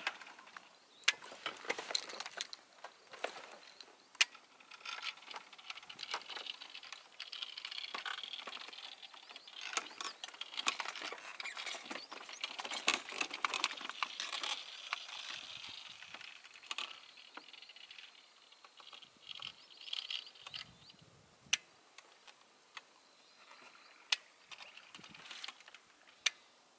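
Evening marsh ambience along the bay shore: a busy scatter of small sharp clicks and short chirps over a faint high hiss, thinning out toward the end.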